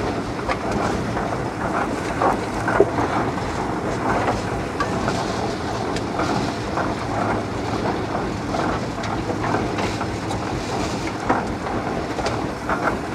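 Steam traction engine running with a steady mechanical clatter, with occasional sharp knocks and clunks as the fire is checked and firewood is handled at the firebox.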